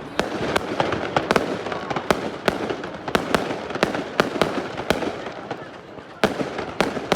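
Fireworks going off in a quick, irregular string of sharp bangs and cracks, about one to three a second, over the murmur of a crowd.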